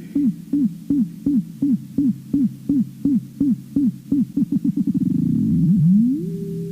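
Synthesizer music: a pitched synth note, each hit sweeping down in pitch, repeating about three times a second, then speeding up into a rapid buzz about five seconds in and gliding upward into a steady held tone near the end.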